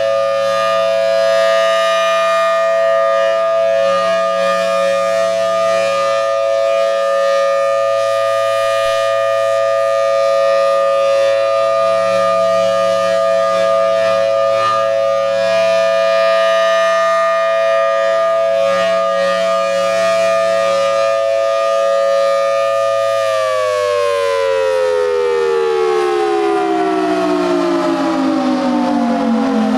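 Federal Signal Thunderbolt 1000T outdoor warning siren sounding a loud, steady full-alert tone, which begins winding down about 23 seconds in, its pitch falling steadily as the rotor slows at the end of the alert.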